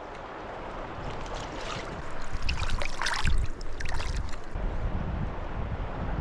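Flowing river water with wind buffeting the microphone, and a short burst of splashing around the middle.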